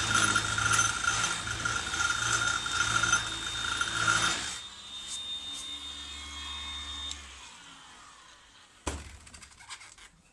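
Ozito 18V cordless random orbital sander with a 40-grit pad sanding wood. The sanding noise stops about four and a half seconds in; the motor runs on more quietly and stops about seven seconds in. A few clicks follow near the end.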